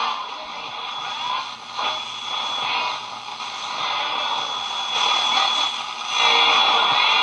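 Zenith K421W AM radio tuned between stations: hiss and crackling static from its speaker, swelling and fading as the dial moves, with a steady thin whistle near the top.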